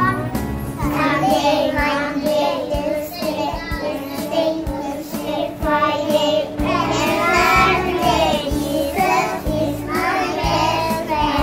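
A group of children singing a praise song over instrumental accompaniment with a steady beat.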